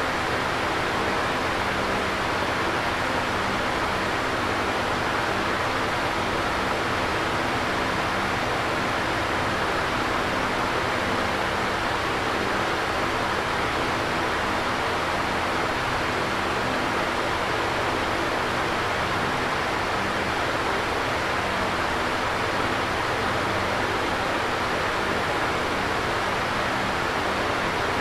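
Electric fan running steadily: an even whooshing hiss of moving air with a faint low motor hum beneath it.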